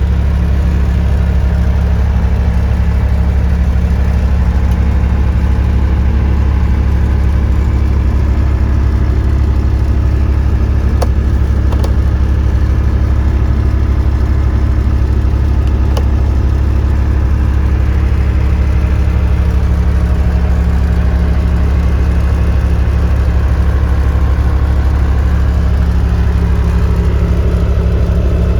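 Cat 259B3 compact track loader's diesel engine running steadily at a constant speed, with a strong low hum, and a few light clicks near the middle.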